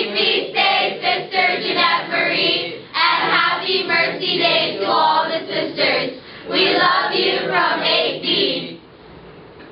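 A group of young teenage students singing together as a choir, in three phrases with short breaks between them, stopping shortly before the end.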